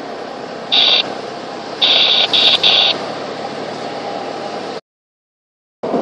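4x4 driving, with steady engine and road noise heard from inside the vehicle. High electronic beeps cut through it: one about a second in, then three in quick succession around two seconds in. The sound drops out completely for about a second near the end.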